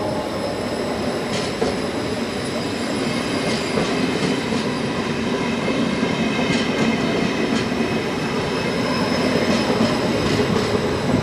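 WESTbahn Stadler KISS double-deck electric multiple unit rolling past alongside the platform: a steady rumble of wheels on rail with a high whine and scattered clicks, getting slightly louder toward the end.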